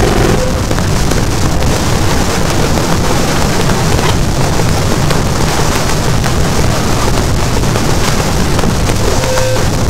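Harsh noise music made on electronics: a loud, dense wall of distorted noise that holds steady, with a thin high tone coming in briefly near the end.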